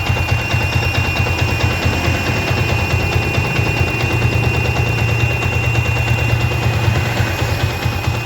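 Yamaha Vixion motorcycle's single-cylinder four-stroke engine running steadily at idle, with a thin steady high-pitched tone over the engine note.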